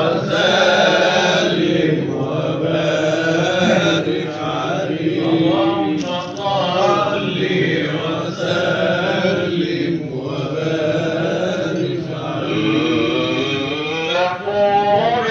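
Male voice chanting an Islamic ibtihal (devotional supplication), with long held, ornamented phrases whose pitch winds up and down, on an old 1979 live recording.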